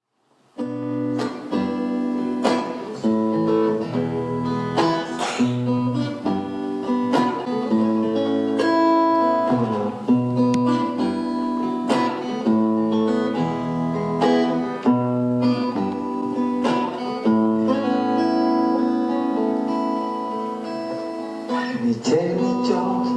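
Instrumental intro of an acoustic ballad: an acoustic guitar strums chords in a steady rhythm, with long held melody notes above them. It starts about half a second in.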